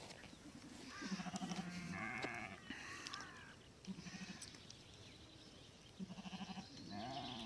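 A flock of sheep bleating as a herding dog drives them: about half a dozen wavering calls from different animals, some overlapping and some higher-pitched than others.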